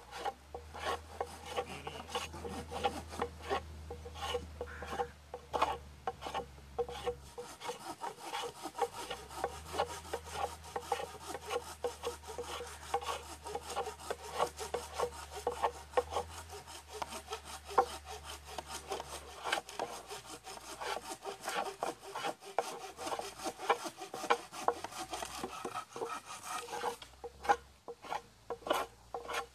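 Hand saw cutting through a wooden board with steady, repeated back-and-forth strokes.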